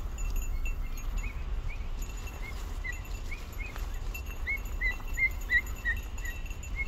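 Wind rumbling on the microphone over rustling crop, with a faint jingle of small bells, typical of the bells worn by hunting podencos, in the first second or so. Through the rest comes a run of short high chirps, about three a second, loudest a little after the middle.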